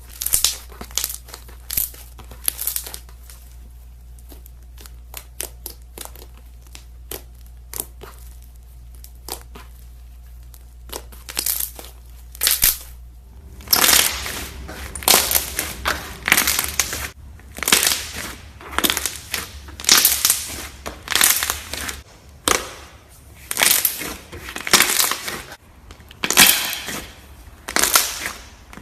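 Slime being squeezed and worked by hand, giving sharp crackling pops. The pops are sparse at first, then from about halfway come as a steady run of louder bursts, roughly one or two a second.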